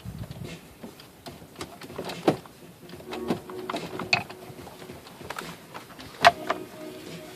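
Clicks, taps and knocks of a screwdriver and screws against the plastic glove-box trim of a car interior while Torx screws are taken out. The two sharpest knocks come a little over two seconds in and about six seconds in.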